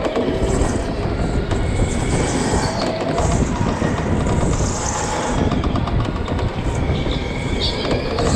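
Electric go-kart driven at speed, heard from the driver's seat: a steady loud rumble and rattle from the chassis and tyres on the smooth track floor, with faint shifting whines through the corners.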